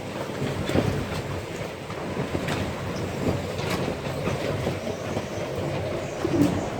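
Storm wind blowing with a steady rumble. Irregular knocks, clanks and creaks run through it, from boats and floating docks working against their moorings and each other.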